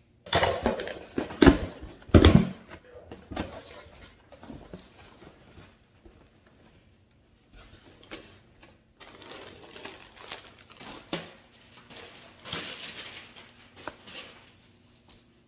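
Cardboard shipping box being opened by hand, with loud rips and knocks in the first couple of seconds. These are followed by intermittent rustling and crinkling of the plastic bag and fabric as a dog carrier is pulled out.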